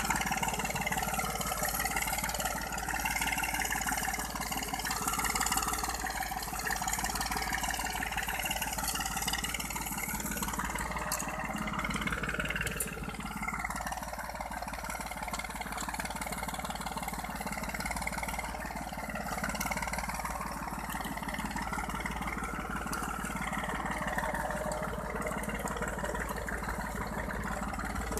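Tractor engine running steadily while pulling a multi-row seed drill through tilled soil.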